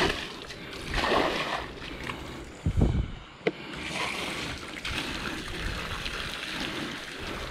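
Water splashing and sloshing in short surges as a floating fishing raft is washed, then an even rush of water. A single sharp knock sounds about three and a half seconds in.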